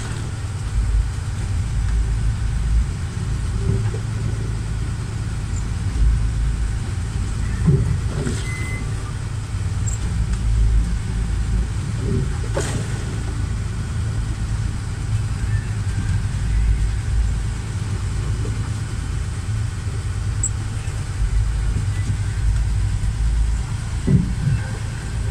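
A boat's engine running steadily with a low, even hum, heard from inside the hull. A few knocks come through, one about 8 seconds in, one about 12 seconds in and one near the end.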